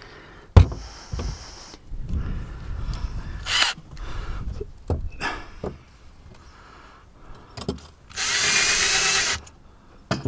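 Cordless drill running in one short burst of about a second and a half near the end, centering up screw holes through a hatch flange into the fiberglass deck. Before it come a sharp knock and some handling and rustling.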